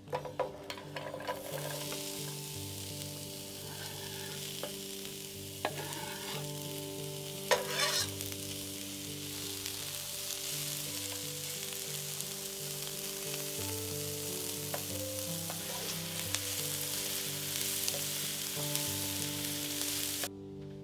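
Diced onion sizzling as it fries in hot vegetable oil in a frying pan, stirred with a slotted spatula. The sizzle starts as the onion drops into the oil at the start, with a few knocks of the spatula against the pan, the loudest about seven and a half seconds in, and it cuts off near the end.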